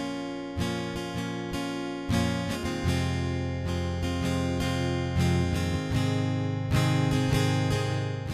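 Instrumental music led by strummed acoustic guitar, with chords struck in a steady rhythm.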